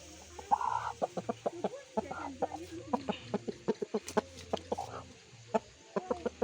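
Rooster clucking in a run of short, low calls that rise and fall, mixed with many sharp clicks.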